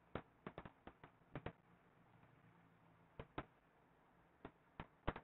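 Faint, irregular clicks and taps of a stylus on a writing tablet as a word is handwritten, about a dozen in all, with a lull of a second or two in the middle.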